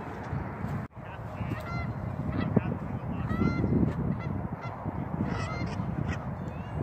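A flock of geese honking repeatedly, many short calls overlapping, over a steady low rumbling noise. The sound drops out briefly about a second in.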